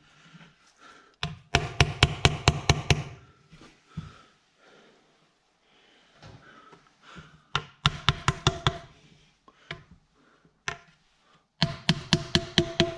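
Small hammer tapping a new crankshaft oil seal into the front timing cover of a BMW N62 V8, seating it flush. Three quick runs of light, sharp taps, several a second, with short pauses between them.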